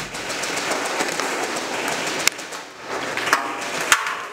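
Scattered airsoft gunfire and BB hits in an indoor arena: sharp cracks, the loudest about two seconds in and near the end, over a steady noisy din.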